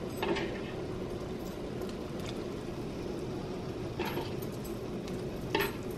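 Large stainless-steel stockpot of seasoned water at the boil, a steady bubbling hiss. Three brief, slightly louder sounds come shortly after the start, about two-thirds of the way through and near the end.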